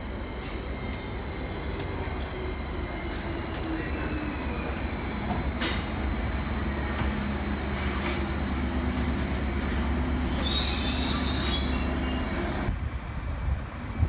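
Greater Anglia Class 755 bi-mode multiple unit pulling into the platform and slowing, its running hum and whine falling in pitch as it brakes. Brakes squeal for about two seconds near the end before the sound cuts to a quieter passage.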